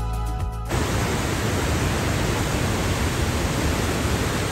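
Background music cuts off abruptly less than a second in, giving way to the steady rush of a waterfall on Johnston Creek pouring through a narrow rock canyon.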